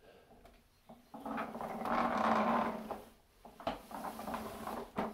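A 3D-printed R2-D2's foot drive motors turning the droid in place on carpet, a noisy motor whir and grind. It starts about a second in, drops away briefly near three seconds, then picks up again with some clicking. The owner is not sure whether the noise comes from the carpet or from loose-ish drives.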